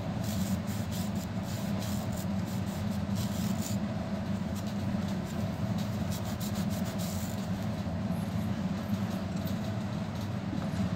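A cloth rubbing over the finned metal heatsink of a graphics card: scratchy wiping strokes for the first few seconds and again briefly past the middle, over a steady low hum.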